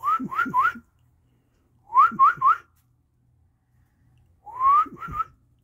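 A person whistling to call puppies: three groups of three quick, rising whistles, about two seconds apart.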